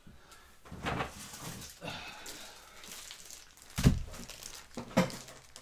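Plastic crinkling as a pack of card sleeves is handled, with a few short knocks and a louder thump nearly four seconds in.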